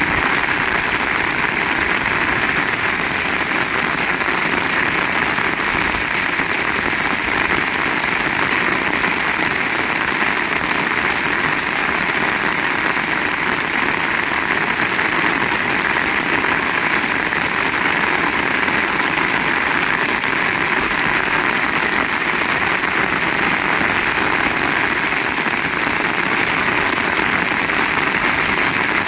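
Heavy rain pouring down steadily, a loud even hiss that does not let up.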